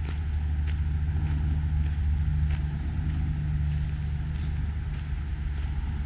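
Low rumble of road traffic that swells around the middle and fades again, with footsteps crunching on a gravel path at a steady walking pace, about one step every half second or so.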